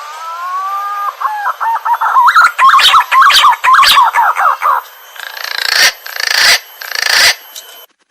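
Green pigeon (punai) song, as used for luring: a couple of drawn-out whistles that slide in pitch, then a quick run of warbling notes, then three harsh hissing notes. It cuts off abruptly near the end and then starts again.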